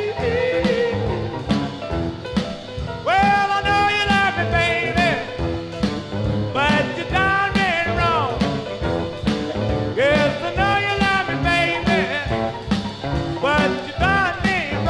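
1957 rhythm and blues record playing from a 45 rpm vinyl single: a band with a steady beat, with long held notes that swoop up into place about every three and a half seconds.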